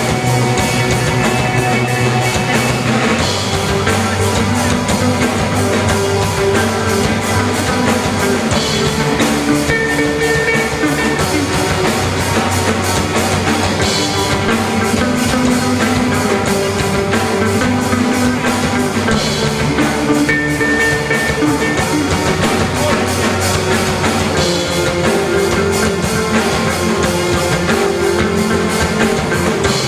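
Rock band playing: guitars and bass over a drum kit with a steady beat, with a cymbal crash every few seconds.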